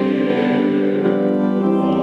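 Organ playing sustained chords of church music, between sung phrases of a choir.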